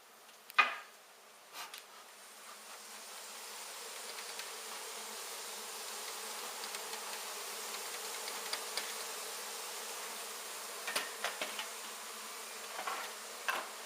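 A mass of honey bees from an exposed colony buzzing steadily. The buzz swells louder a few seconds in and then holds. A sharp knock comes about half a second in, and a few lighter knocks or taps come near the end.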